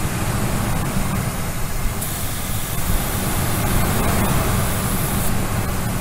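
2002 Ford F-150 engine idling, with a vacuum leak at the intake, while an aerosol can of brake parts cleaner hisses for about three seconds from about two seconds in. The cleaner is drawn in through the leak and burned, so the engine's idle speed rises, which marks where the leak is.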